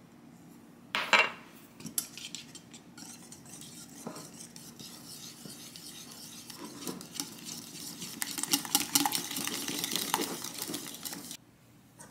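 Stainless steel wire whisk beating egg tart filling in a ceramic bowl, its wires clinking rapidly against the bowl. A sharp clink comes about a second in, and the whisking grows louder over the last few seconds before cutting off suddenly.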